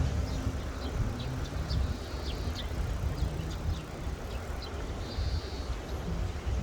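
Low, gusting rumble of wind and surf at the seashore, with many short high bird chirps scattered throughout.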